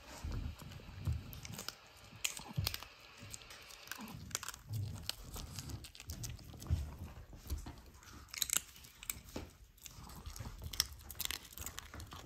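Long-haired Chihuahua crunching and chewing a crisp low-temperature-dried beet chip: a quiet run of irregular crunches and mouth clicks.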